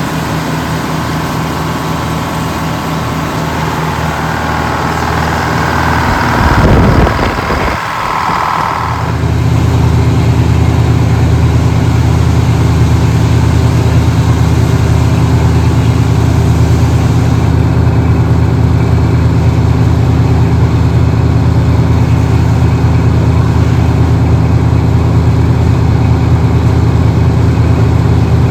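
A large engine running steadily. A higher-pitched noise builds a few seconds in, peaks with a loud rumble about seven seconds in, and after that the engine runs louder and evenly.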